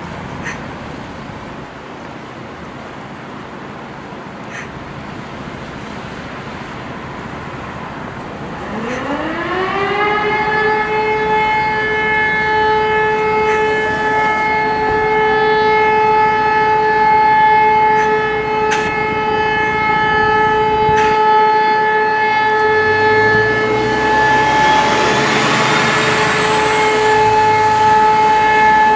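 Civil-defence warning siren winding up from a low pitch to a steady tone about a third of the way in, then holding that tone. This is the nationwide siren test.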